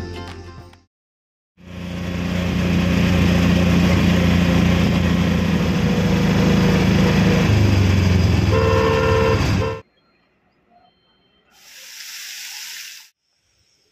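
Auto-rickshaw ride heard from inside the cabin: the small engine runs steadily under loud road noise, and a horn honks briefly about a second before it stops. After a pause comes a short hiss of water spray from a fountain.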